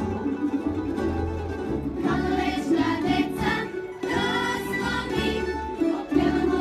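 Mixed choir singing a folk song to tamburica accompaniment: plucked strings and a bass under the voices.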